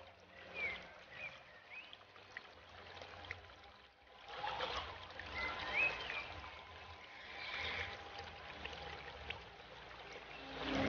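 Faint, steady trickle of aquarium water, with a few short high chirps early on and again in the middle.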